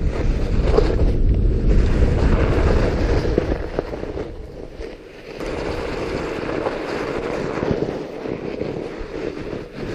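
Fat bike with 4.5-inch tyres rolling over a snowy trail, mixed with wind rumbling on the bike-mounted camera's microphone. The rumble is heaviest in the first three or four seconds, dips briefly, then settles into a steadier rolling noise.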